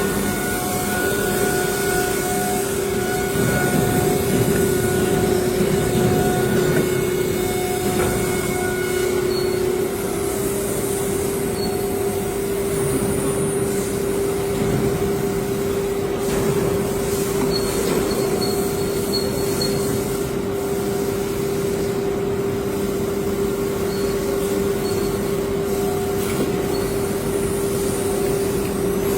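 CNC router's 9 kW HQD air-cooled spindle running steadily at high speed, giving a constant high whine over a dense rushing noise of machine operation.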